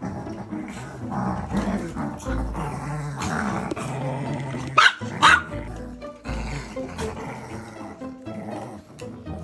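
Small house dogs, long-haired chihuahuas among them, greeting one another, with two short, sharp barks about five seconds in, over background music.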